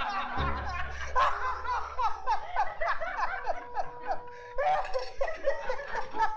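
Men laughing loudly and at length, the older man's laugh coming in rapid repeated bursts with a second man laughing along.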